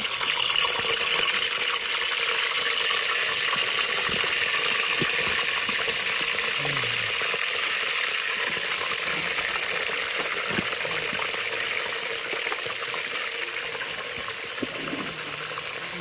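Mutton pieces frying in hot ghee in an aluminium pot on a portable gas stove: a steady sizzle that sets in suddenly just before and slowly grows quieter.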